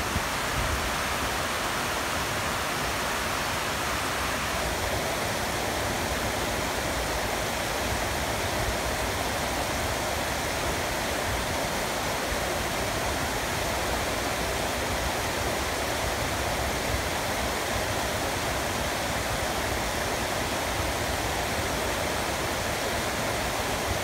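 Shallow water rushing steadily over flat, layered bedrock in thin sheets and small cascades.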